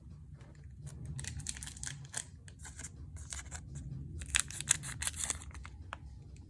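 Foil wrapper of a Pokémon TCG booster pack crinkling and being torn open, a run of quick crackling strokes.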